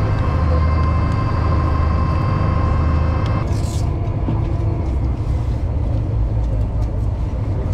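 Cruise boat's engines running with a steady low rumble. A steady whine over it cuts off about three and a half seconds in, followed by a brief hiss.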